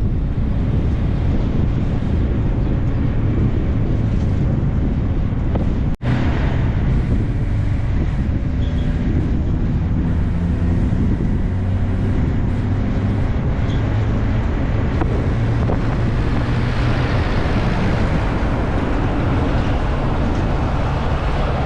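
A car being driven: steady engine and road noise with wind buffeting the microphone. The sound cuts out for a split second about six seconds in.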